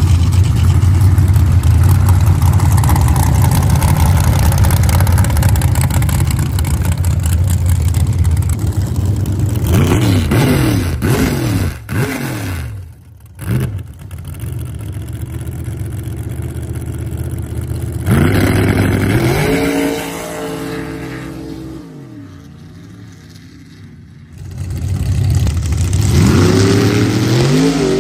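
Dirt drag race truck engines: one runs steadily at full throttle for about ten seconds, then comes a few quick revs and a stretch of lower steady running. The revs climb about two-thirds of the way in, fall back, and climb again near the end as trucks launch.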